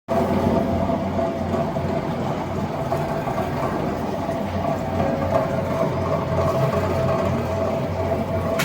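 Bandsaw running steadily with no cut: a constant motor hum with a steady whine over it.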